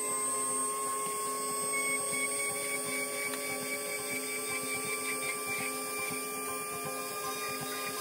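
Dremel rotary tool running at a steady high speed with a steady whine, its small drill bit boring window holes in a plastic model hull.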